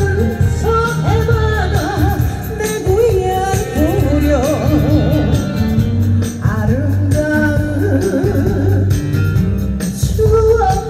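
A female singer singing live into a microphone over instrumental accompaniment with a steady beat, amplified through PA speakers; her voice carries a wavering vibrato on held notes.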